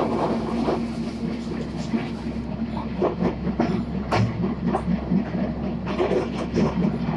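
Narrow-gauge park railway train, hauled by a Borsig steam locomotive, running along the track: a steady rumble from the moving carriage with irregular clacks of the wheels on the rails.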